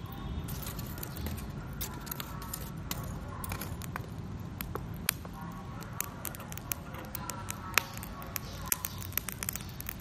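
Burning charcoal crackling, with scattered sharp pops that come more often in the second half, the loudest a little before eight seconds in.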